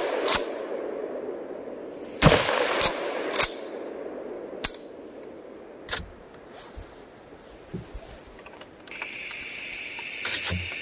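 A single blast from a Kel-Tec KS7 12-gauge pump shotgun about two seconds in, echoing off the woods, followed by two quick clacks of the pump being cycled. Scattered small clicks follow, and a steady high tone starts near the end.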